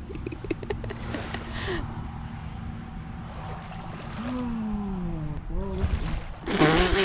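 A steady low rumble of open-air noise. About four seconds in, a voice gives a long groan falling in pitch, then a short one. A louder burst of voice comes near the end.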